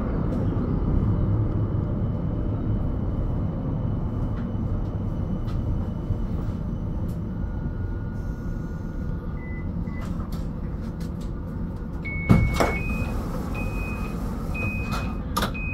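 CAF Urbos 100 tram running, heard from inside: a steady low rumble of traction motors and wheels on rail, with scattered clicks. A sharp knock comes about twelve seconds in, followed by several short high beeps near the end.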